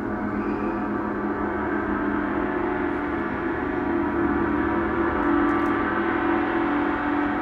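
Large hanging gong played with a mallet, ringing on as a sustained wash of many overlapping tones that swells slightly past the middle.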